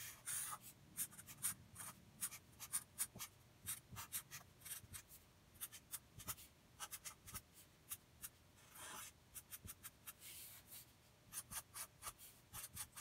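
Faint squeak and scratch of a Sharpie marker's felt tip drawing on paper: many quick short strokes, with a couple of longer drawn strokes about nine and ten and a half seconds in.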